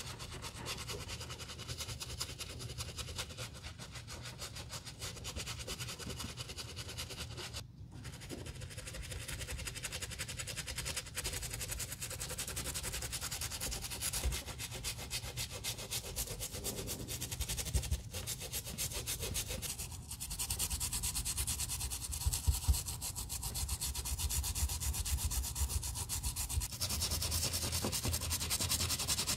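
Bristle shoe brushes scrubbing foamy cleaner over a sneaker's white leather and plastic Lego-brick panels in quick, rapid strokes, with a short break about eight seconds in.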